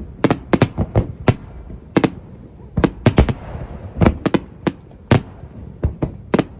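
Fireworks bursting overhead: a rapid, irregular run of sharp booms, often several in quick succession, some followed by a crackling sizzle.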